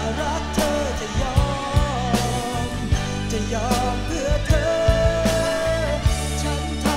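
Thai rock song played from a vinyl record: a male lead vocal with wavering sung lines and one long held note in the middle, over a full band with bass and steady drum hits.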